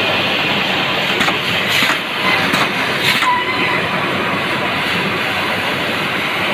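Croissant rolling machine running, its conveyor belts and steel rollers turning with a steady mechanical rattle. A few sharp clicks come through in the first half.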